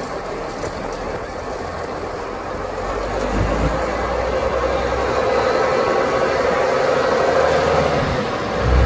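International Harvester 3388's six-cylinder turbo diesel engine running steadily, growing louder over the first few seconds. There are low rumbles about three and a half seconds in and again near the end.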